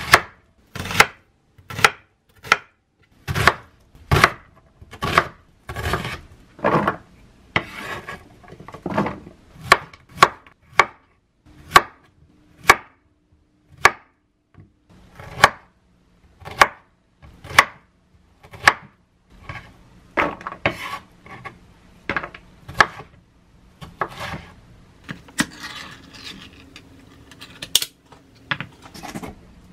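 Chef's knife slicing vegetables on a bamboo cutting board, each cut ending in a sharp knock of the blade on the wood, roughly one a second and unevenly spaced. Near the end come rustling and a sharp click as the peel-off lid of a Spam can is pulled open.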